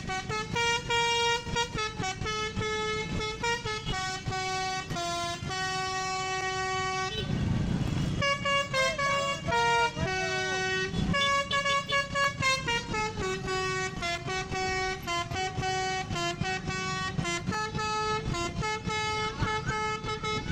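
Bus 'telolet basuri' musical horn playing a tune: a run of held notes stepping up and down in pitch, with a brief rushing noise about seven seconds in.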